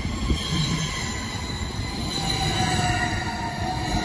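Double-deck S-Bahn train rolling slowly past along the platform: a steady low rumble of wheels on rail, with several high, thin tones shifting in pitch over it.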